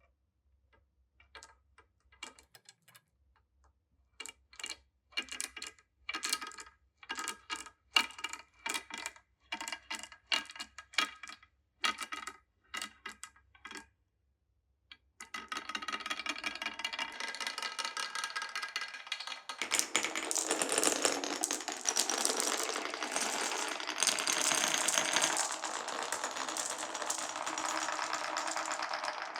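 Marbles clacking on a marble run: separate sharp clicks with a short ring, about two a second, as marbles drop one by one. From about halfway a steady, dense rattle of many marbles rolling along the track takes over, louder for the last ten seconds.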